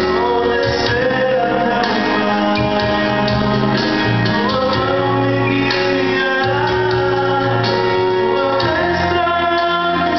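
Live amplified singing of a gospel song: a man sings into a microphone over an instrumental accompaniment with steady, sustained bass notes.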